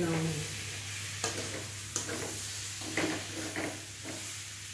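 Spatula stirring and scraping food in a steel kadai on a gas stove, with a steady frying sizzle under it and a few sharp scrapes against the pan about a second apart.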